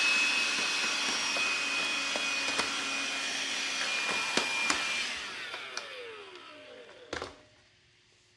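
Small vacuum cleaner running with a steady high whine and a few clicks. It is switched off about five seconds in and spins down with a falling pitch, followed by a single knock.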